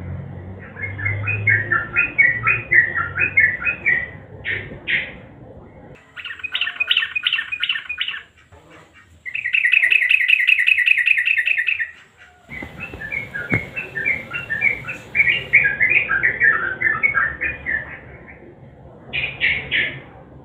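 Sooty-headed bulbul (trucukan) singing: strings of short, quick chirping phrases, with a fast, even trill lasting about three seconds near the middle.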